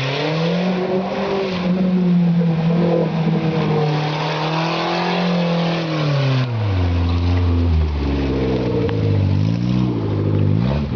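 Suzuki Samurai off-roader's engine held at high revs for about six seconds, then dropping off and revving up and down several times.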